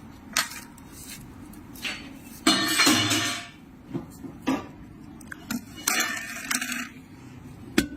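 Metal tools and parts clinking and knocking in a series of sharp, irregular hits, with a longer rattling clatter about two and a half seconds in.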